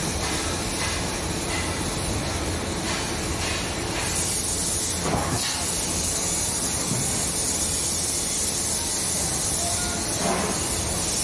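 Steady hissing and low rumbling of factory machinery at an automatic machine working a steel cylinder, with a brief falling squeal about five seconds in.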